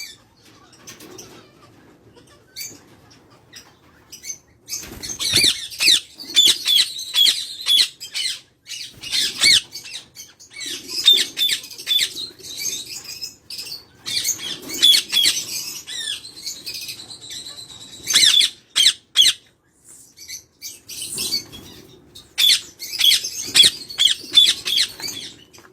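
Parrots chirping and squawking in bursts of rapid short high calls, with scratchy clicks mixed in and quieter gaps between the bursts.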